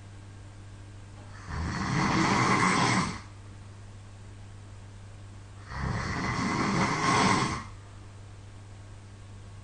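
A person snoring loudly in their sleep: two long, rattling snores about four seconds apart, each lasting around a second and a half to two seconds. A steady low hum fills the gaps between them.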